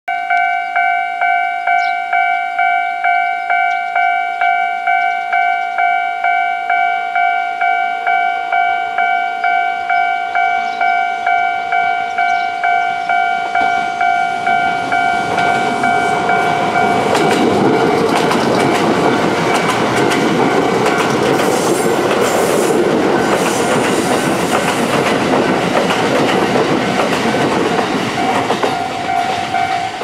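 Japanese level-crossing alarm bell ringing steadily, about three rings every two seconds. About halfway through, the rumble and wheel clatter of a Kintetsu 12200-series and 22000-series limited express electric train build up as it approaches and passes, and by the end they are louder than the bell.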